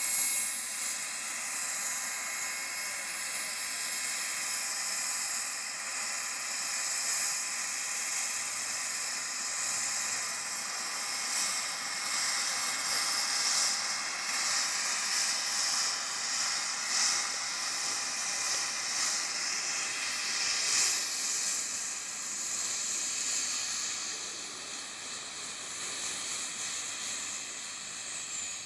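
Small gas turbine engine of a radio-controlled model helicopter running at flight power: a steady high whine over a strong hiss, with the rotor whooshing as it hovers low. The sound swells and fades a little as the helicopter moves about, easing off somewhat near the end.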